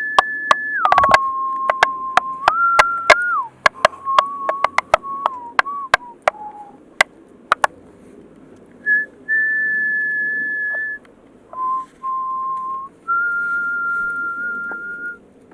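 Tap shoes clicking out quick, uneven rhythms while a person whistles a slow tune in long held notes. The taps stop about eight seconds in, and the whistling carries on alone in four long notes.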